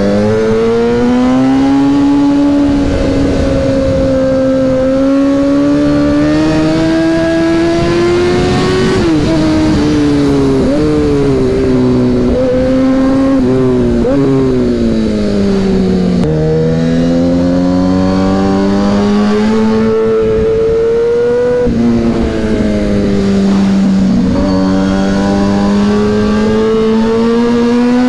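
Kawasaki ZX-10R's inline-four engine under way. Its pitch climbs and falls with the throttle, drops in a long slide as the bike eases off, and steps down suddenly about three quarters of the way through at a gear change.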